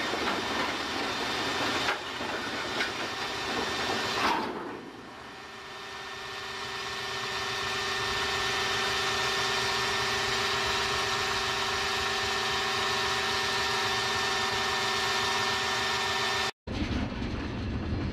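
Railcars colliding in a train crash test: grinding and scraping noise with a few cracks, ending in a sharp bang about four seconds in. A steady engine drone with several held tones follows, then cuts off abruptly near the end.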